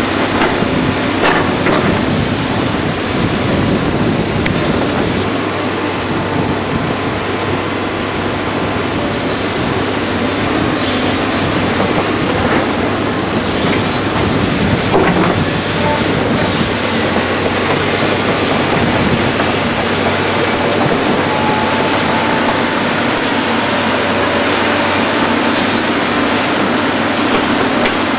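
Volvo crawler excavator's diesel engine running steadily under load as the machine digs and moves on its tracks, with occasional clanks from the undercarriage.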